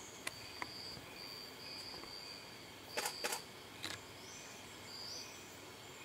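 Faint forest ambience with a high thin tone that comes and goes, broken by a few sharp clicks: two light ones near the start, then a louder close pair about three seconds in and one more just before four seconds.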